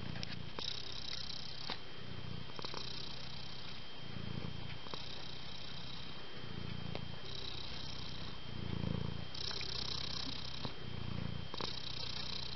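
Domestic cat purring steadily, the purr rising and falling with its breaths about once every two seconds.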